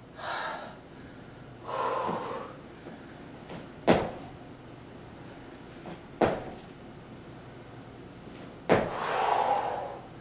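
Jump squat landings on an exercise mat over a wooden floor: three thumps about two and a half seconds apart, with heavy breaths between them.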